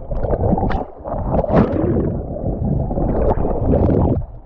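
Water sloshing and gurgling loudly around a kayak, with a short lull about a second in, cutting off suddenly near the end.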